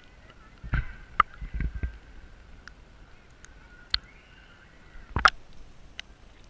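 Underwater sound picked up by a diving camera: a handful of sharp knocks and thumps from the spearfisherman's gear, the loudest about a second in and again just after five seconds, over a faint steady high tone.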